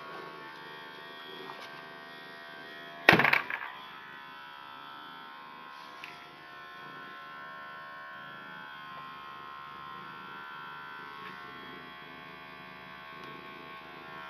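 Small handheld electric massager buzzing steadily as it runs over a cat's fur. About three seconds in there is one loud, brief bump.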